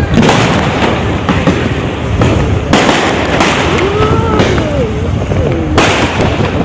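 Aerial fireworks bursting overhead amid a dense, continuous crackle and popping of firecrackers. Louder bangs strike at the start and then about every three seconds.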